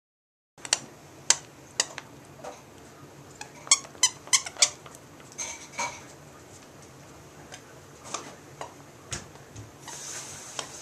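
Puppy chewing a squeaky plush toy: a quick run of short, sharp squeaks in the first few seconds, then scattered quieter squeaks.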